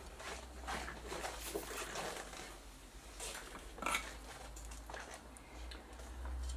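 Light clicks, taps and rustles of a printed circuit board being handled while new electrolytic capacitors are fitted into it, the sharpest tap about four seconds in, over a low steady hum.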